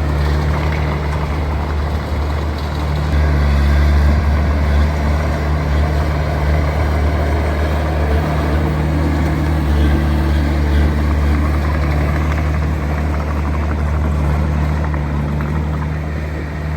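Heavy diesel engine of earthmoving machinery running steadily, a deep drone that grows a little louder about three seconds in.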